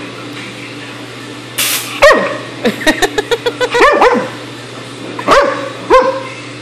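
Black Labrador puppy barking at an air hose: a short hiss of air about one and a half seconds in, then a bark, a quick run of barks, and two more single barks near the end.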